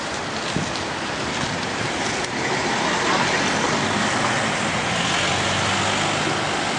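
Street traffic: motor vehicles running and passing over a steady wash of road noise, with one engine's hum growing a little louder about halfway through.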